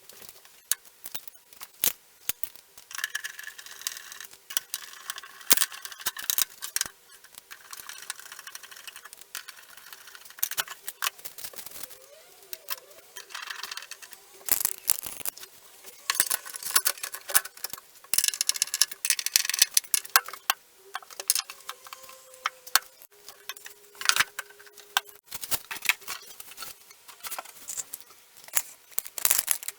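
Handling of flat-pack desk parts and metal fittings during assembly: scattered clicks, knocks and small metallic rattles, with stretches of scraping and rubbing.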